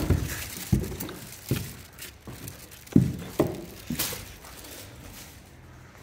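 Footsteps climbing wooden stairs, a heavy thud with each step about every three-quarters of a second, then a few steps across a bare floor. The steps stop about four and a half seconds in.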